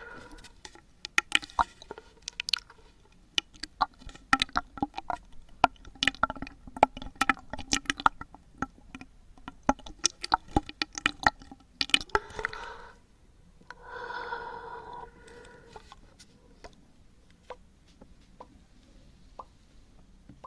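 Close-miked wet mouth sounds: quick irregular tongue clicks and lip smacks in dense runs, easing off to a few scattered clicks, with a brief soft voiced sound about two-thirds of the way through.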